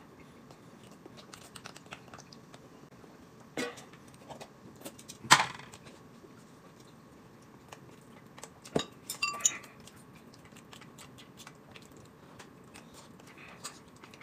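Quiet tableware sounds while eating: chopsticks stirring and tapping in a glass cup, and dishes and utensils clinking, with faint chewing. A few sharper clinks stand out, the loudest about five seconds in and a short cluster around nine seconds.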